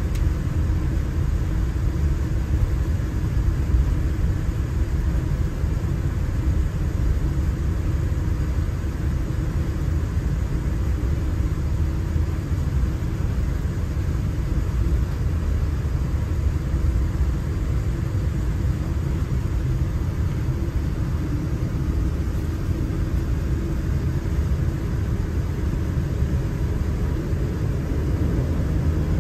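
Steady low rumble inside the passenger cabin of a Boeing 787-9 airliner on the ground with its engines running, with a faint even hum over it.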